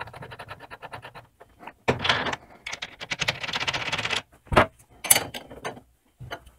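Steel parts of a quick change tool post being fitted by hand: fast, even clicking as the threaded stud is worked into the T-nut, then scraping and rattling as the tool post body slides down over the stud, and a few sharp metal knocks as it seats on the compound slide.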